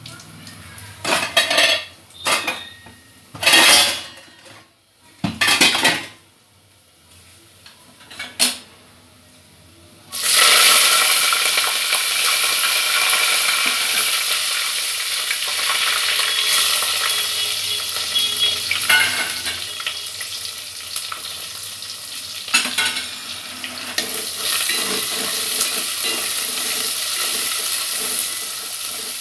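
A few separate clinks and knocks of metal kitchenware, then about ten seconds in a sudden loud sizzle as food hits hot fat in a metal pot on a gas stove. The sizzling goes on steadily, with occasional scrapes and clicks of a spoon stirring in the pot.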